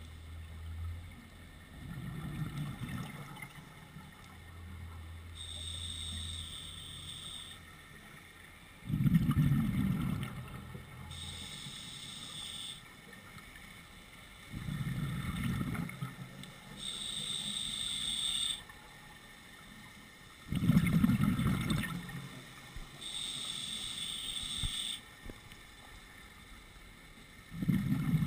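Scuba diver breathing on an open-circuit regulator: a hissing inhale through the regulator, then a louder low rush of exhaled bubbles, repeating about every six seconds.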